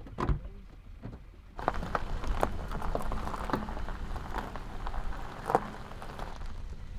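A car door thumps shut at the start, then from about one and a half seconds in the tyres of a small SUV crunch and pop over gravel as it pulls slowly away.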